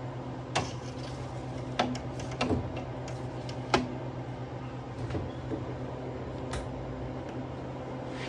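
Metal freeze-dryer trays clanking a handful of times as they are slid onto the shelves and the door is closed, over the steady hum of the freeze dryer's refrigeration running its pre-freeze.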